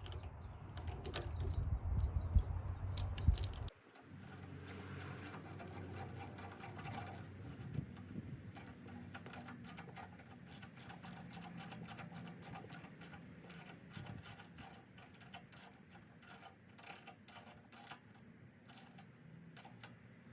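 A spark plug being tightened into a Honda GX390 engine with a ratchet and plug socket: many short, irregular metallic clicks, a few a second. For the first few seconds a low rumble of handling on the microphone covers them.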